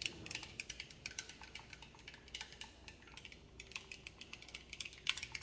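A long thin stirrer stirring milk in a tall drinking glass, clinking against the glass in faint, rapid, irregular ticks.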